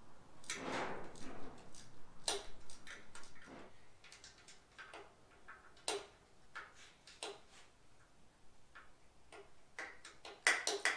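Socket ratchet clicking in short, irregular runs as rocker-arm bolts are backed out, with a louder flurry of clicks near the end.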